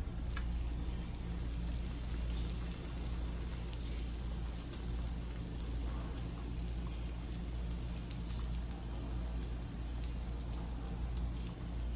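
Panko-breaded chicken cutlet shallow-frying in hot vegetable oil in a skillet: a steady sizzle with small crackles.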